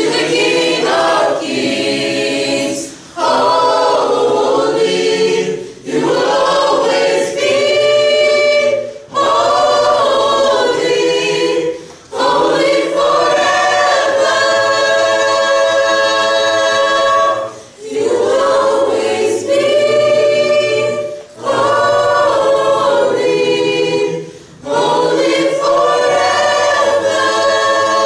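Mixed youth choir singing a cappella, in phrases of about three seconds separated by brief pauses for breath, with one longer held chord about halfway through.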